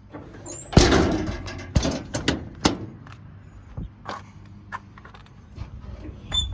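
A door on the truck is shut with a heavy thump about a second in, followed by several sharper clicks and knocks of latches and handling. A bird chirps faintly near the start and again near the end.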